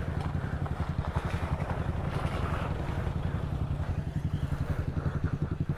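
Motorcycle engine running steadily, with a quick, even pulse.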